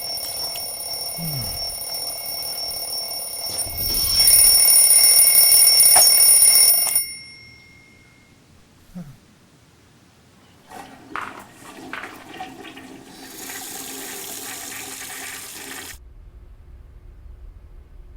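Alarm clock ringing with a steady high tone that grows louder about four seconds in and cuts off abruptly about seven seconds in. A few seconds later comes a stretch of rushing noise that also stops suddenly.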